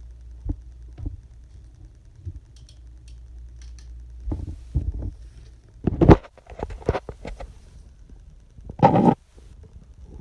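Handling noise: scattered clicks and knocks from objects being handled, the loudest knock about six seconds in, and a short dense rustle near nine seconds, over a low steady hum.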